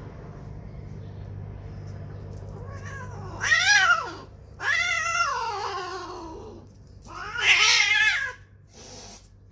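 Female cat in heat, though spayed, yowling loudly three times as mating with a tom ends, each long cry rising and falling in pitch, the middle one sliding downward; a short noisy burst follows near the end.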